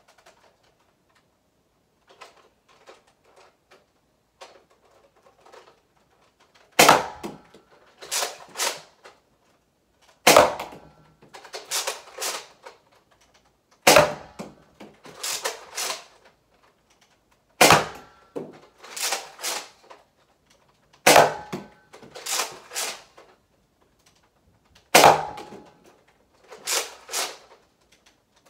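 Nerf Rival Helios XVIII-700 spring-powered bolt-action blaster firing six times, about every three and a half seconds. Each shot is a sharp, loud crack, followed by two or three softer clacks as the bolt is worked to prime the next shot. Faint handling clicks come before the first shot, starting about two seconds in.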